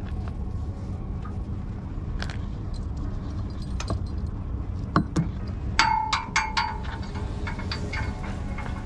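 Rope and metal hardware being handled at a kayak trailer: a few knocks, then a quick run of four or five bright, ringing metallic clinks about six seconds in, over a steady low rumble.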